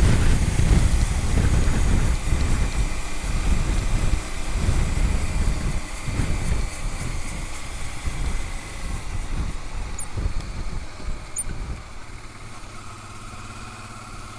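Honda Transalp 650's V-twin engine running under way, with wind noise over the microphone. It fades steadily as the bike slows and settles to a quieter, steady idle in the last couple of seconds.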